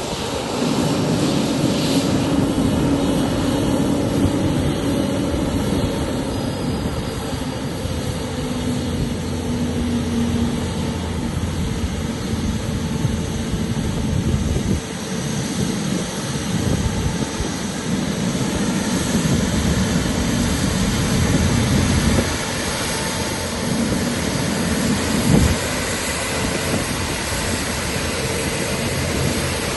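Rolls-Royce Trent XWB jet engines of an Airbus A350-900 running with a steady, even rumble.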